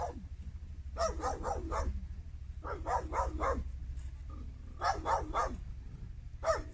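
A dog barking in runs of three or four quick barks, a new run every second or two.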